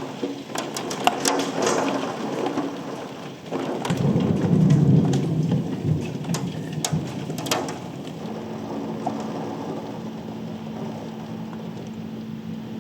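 Steady rain on the back end of a thunderstorm, with sharp drips and knocks in the first half. A low rumble of thunder, the loudest sound, comes about four seconds in and fades over a couple of seconds. A faint steady hum joins after about eight seconds.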